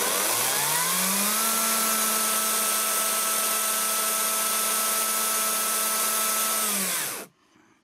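Parkside Performance PPKSA 40-Li A1 40 V cordless brushless chainsaw running with no load, its whine rising in pitch as it spins up over the first second or so, holding steady, then winding down and stopping about seven seconds in. It is run free so the freshly added chain oil spreads along the chain.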